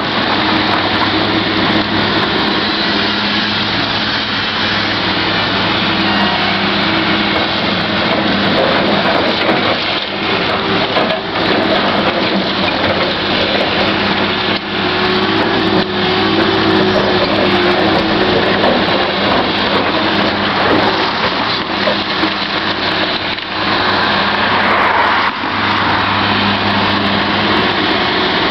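Komatsu PC1250 hydraulic excavator working: its diesel engine runs steadily under load with hydraulic strain, rising briefly near the end. Scattered knocks and crunches come from the bucket digging spoil and dumping it into the dump truck's body.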